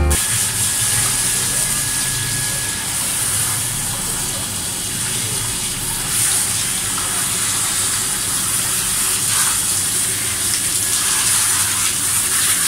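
Water spraying steadily from a hand-held hose nozzle onto a dog's wet, soapy coat, rinsing out the shampoo; an even hiss of running water.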